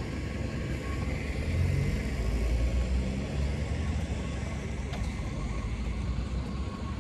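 A car driving past on the street: a low engine and tyre rumble that swells about two seconds in and fades again by about four seconds, over steady outdoor street noise.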